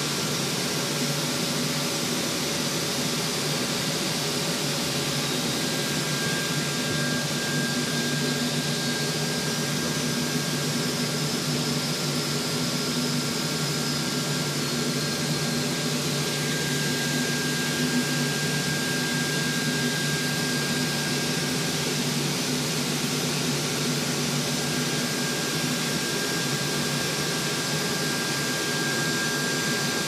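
Steady hum and whir of power-cable production machinery, with a thin, steady high whine running through it.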